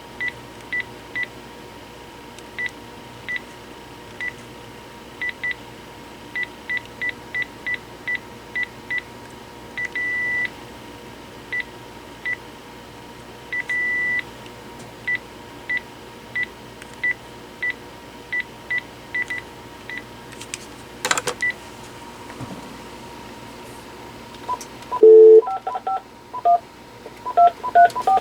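Cordless phone key beeps: a long series of short, identical high beeps as buttons are pressed, two of them held longer, and a sharp click about three quarters of the way through. Near the end comes a quick run of touch-tone dialing tones at several pitches.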